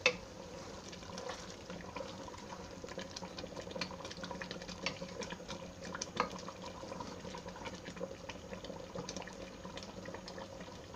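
Mango pieces in sugar syrup bubbling at a boil in a pan, with many small pops of bursting bubbles. A wooden spatula knocks against the pan as it stirs, at the start and again about six seconds in.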